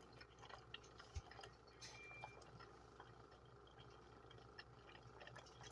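Mainstays single-serve capsule coffee maker brewing, heard faintly: a low steady hum with scattered light ticks and patters as the coffee runs into the cup.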